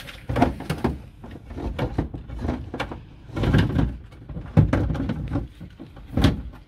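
Lid of a Kickass lithium battery box being handled and fitted back onto the box: a run of knocks, clicks and scrapes, with a few louder knocks about halfway through and near the end.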